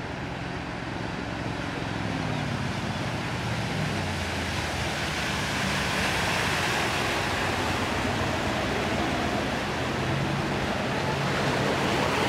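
Vintage mahogany runabout's engine running as the boat passes close at speed, with the rushing hiss of its bow wave and wake. The sound builds, is loudest about halfway through as the boat goes by, then holds as it moves off.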